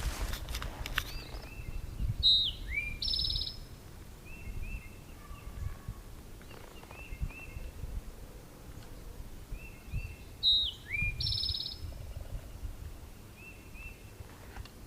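A songbird singing the same short phrase twice, about eight seconds apart: a falling note, a rising note, then a buzzy trill, with shorter chirps in between. A low rumble runs underneath.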